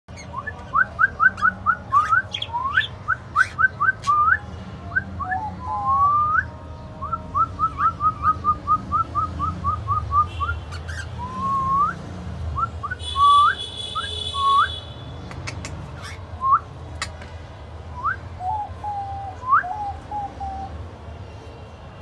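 Lutino cockatiel whistling: quick runs of short, sharply rising whistle notes, broken by a harsher, buzzier call lasting about a second and a half just past the middle, and a few lower wavering notes near the end.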